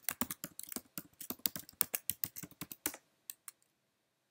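Quick typing on a computer keyboard for about three seconds as a sudo password is entered at a terminal prompt, then two single key presses.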